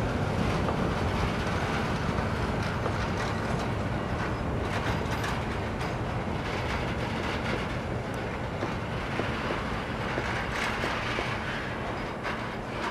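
Covered hopper wagons of a freight train rolling away over a steel truss railway bridge. The wheels rumble steadily on the rails with scattered clicks, and the sound slowly fades.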